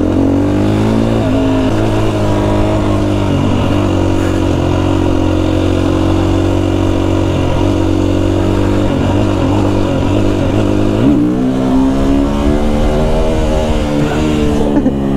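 Husqvarna FE 350 single-cylinder four-stroke enduro engine pulling away and riding on, its revs rising and falling several times with the gear changes and holding steady for a few seconds in the middle.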